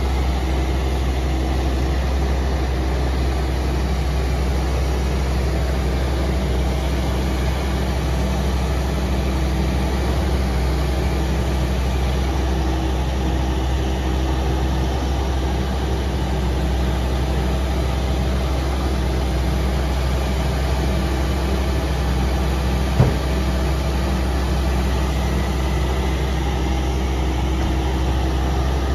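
Takeuchi TB257FR compact excavator's diesel engine running steadily as the machine digs soil, with a single sharp click late on.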